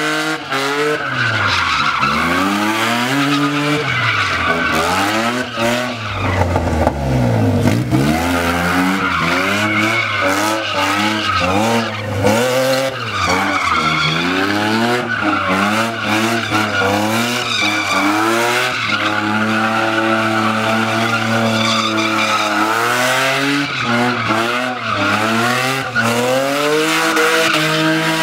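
BMW engine revved hard and repeatedly, its pitch sweeping up and down every second or two and held steadier for a few seconds past the middle, as the rear tyres squeal through drifting donuts.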